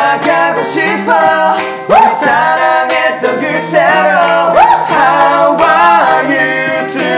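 Several young men singing a pop chorus together over a toy keyboard, which plays held chords and a steady built-in beat.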